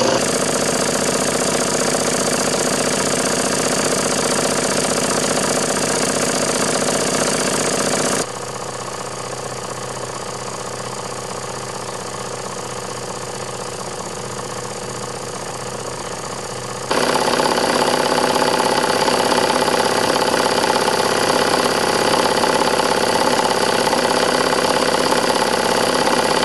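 Vintage Bing toy horizontal steam engine running fast on compressed air instead of steam: a steady, rapid beat of exhaust and clattering motion. It drops quieter for several seconds in the middle, then returns to full level.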